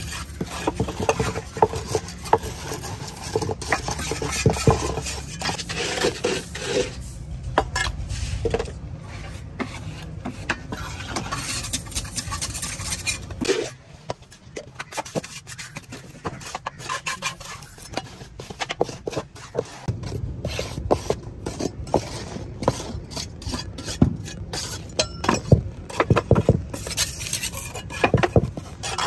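Steel trowel scraping and clinking against a steel tile mold as cement mix is spread and smoothed into it, with frequent sharp scrapes and taps. A low background rumble drops away about 13 seconds in and returns about 20 seconds in.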